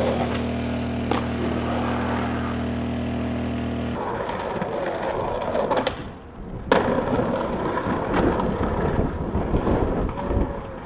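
A steady low hum for about the first four seconds, then skateboard wheels rolling on street pavement, with one sharp clack of the board hitting the ground a little past halfway.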